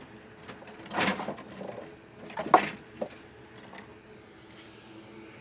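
Handling noises at a repair bench: a rustle about a second in, a louder clattering knock about two and a half seconds in, then a couple of small clicks.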